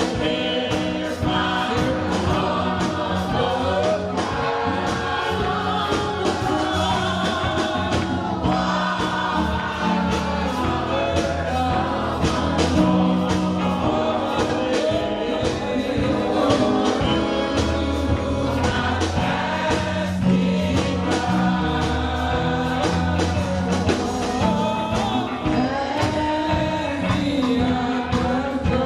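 Gospel choir singing with a band, with a steady beat and sustained bass notes.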